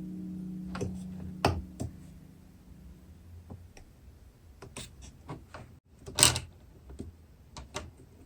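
Small plastic toys being handled and unpacked: a scattering of sharp clicks and taps, with a louder, brief scraping rustle about six seconds in. A held note of background music fades out over the first two seconds.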